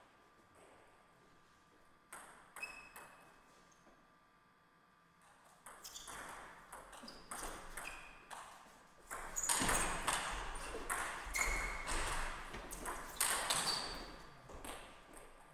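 Table tennis rally: the celluloid-type ball clicks off the rubber paddles and bounces on the table in quick succession, with the players' footwork scuffing on the court floor. A few scattered clicks come first, then the rally gets dense and louder about six seconds in and stops near the end.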